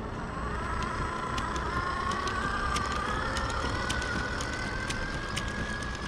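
Whine of an RC truck's electric motor and gearbox, rising slowly in pitch as the truck picks up speed, with light irregular clicks as its tyres roll over the gaps between wooden deck planks.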